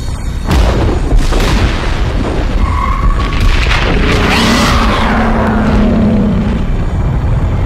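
Dramatic intro sound effects: deep booms and sweeping whooshes over a steady low rumble, with several sudden hits and a held low tone in the second half.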